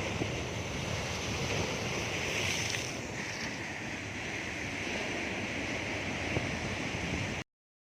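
Storm-driven surf from a rough sea, with wind gusting across the microphone; the noise stays steady, then cuts off suddenly near the end.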